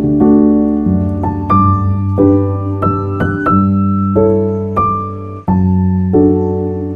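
Background music: piano playing a gentle melody over chords.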